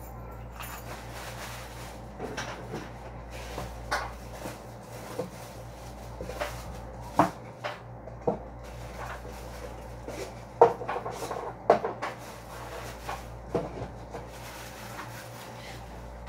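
Kitchenware being handled at a stove: scattered knocks and clinks of a metal bowl, pot and utensils, with plastic packaging rustling, over a steady low hum. The sharpest knocks come about seven, ten and a half and twelve seconds in.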